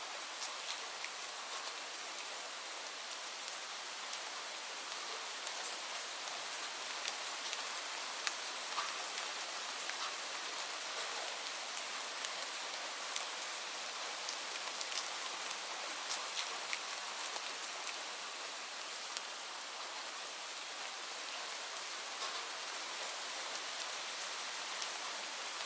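Steady rain falling on leaves: an even hiss of rainfall with many separate drops ticking sharply throughout.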